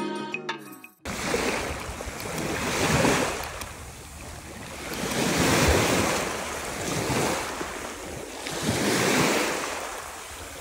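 Sea waves washing in, swelling and fading about every three seconds, with wind on the microphone.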